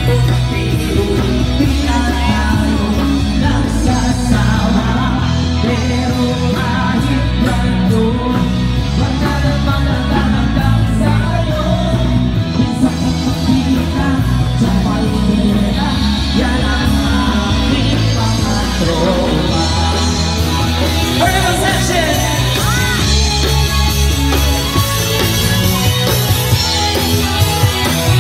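Live band playing a song with a singer on vocals, amplified through a PA sound system.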